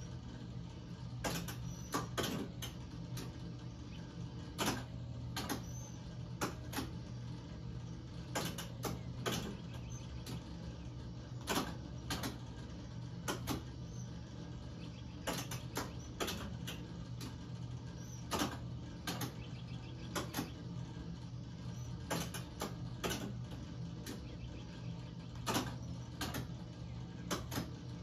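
1972 Midway Bulls Eye electromechanical dart game at work: sharp, irregular clicks and clacks, some in quick pairs, from its relays and score reels stepping as the score advances, over a steady low hum.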